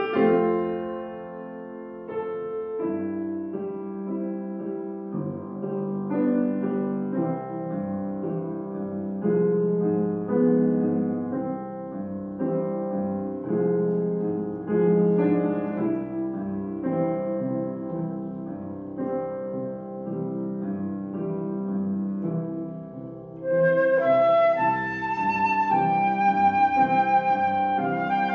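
Bösendorfer grand piano playing a slow classical piece alone. Near the end, a cocus-wood transverse flute by Hammig comes in with held notes over the piano.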